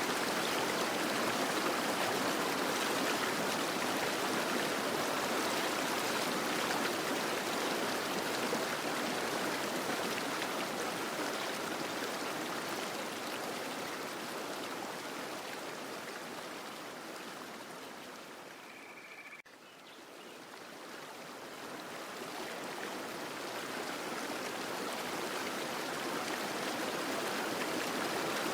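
Fountain water splashing and rushing, a steady even noise. It fades down about two-thirds of the way through and then swells back.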